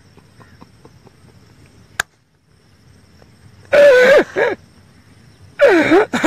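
A man laughing: after a quiet stretch broken by a single click, two loud high-pitched laughing cries, the first a little under four seconds in and the second near the end.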